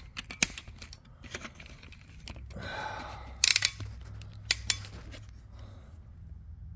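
Scattered sharp clicks and light metallic clanks of parts and tools being handled, with a short rustle about two and a half seconds in and a quick cluster of clicks about a second later. A steady low hum runs underneath.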